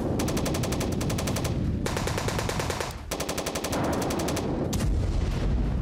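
Machine gun firing long rapid bursts of automatic fire, with short breaks between bursts. A deep low rumble takes over near the end.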